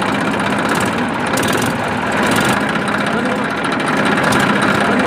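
Small engine of a home-made model tractor running steadily at idle, with a fast, even chatter.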